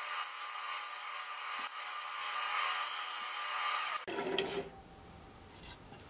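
Wood lathe running while a turning tool cuts into the spinning softwood lid turned from a scrap 2x8, a steady hissing scrape over the motor's faint whine, taking off tear-out. The cutting stops abruptly about four seconds in, leaving a quieter stretch with a few light knocks.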